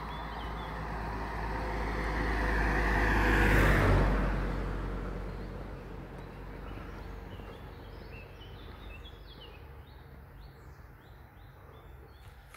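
A motor vehicle drives past: its engine and tyre noise grow louder over about four seconds, peak, then fade away within a couple of seconds. Birds chirp faintly in the latter part.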